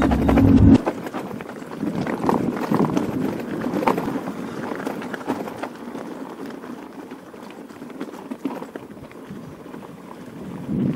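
Mountain bike rolling over a gravel and dirt track, its tyres crunching on loose stones and the bike rattling over the bumps. Electronic music cuts off under a second in.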